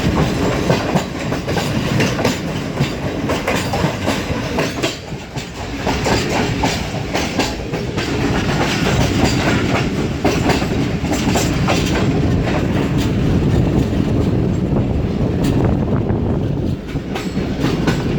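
Passenger train's wheels clattering over rail joints and switch points as it pulls out of a junction station: a continuous loud rumble with many irregular sharp clicks.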